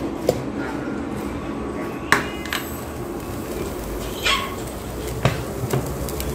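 A large aluminium cooking pot knocking and clanking as it is handled and set down on an induction cooktop: a few separate sharp knocks, the loudest a little after two seconds with a short metallic ring.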